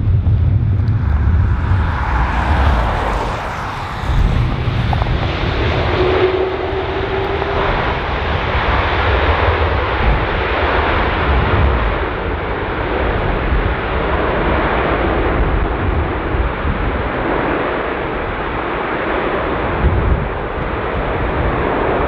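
Airbus A330 airliner's jet engines running loud and steady during the landing roll-out, the sound of reverse thrust just after touchdown. Gusty wind rumbles on the microphone.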